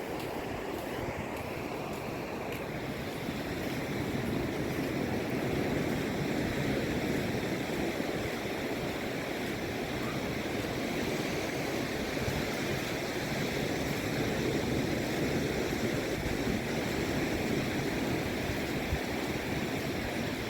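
Surf breaking and washing up the beach, a steady rush of waves that swells gently now and then, with wind blowing across the microphone.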